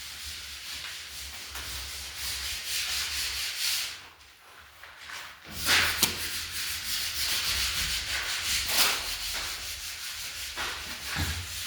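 Sandpaper rubbing over a skimmed gypsum ceiling or wall in repeated scratchy strokes. It pauses briefly about four seconds in, then resumes.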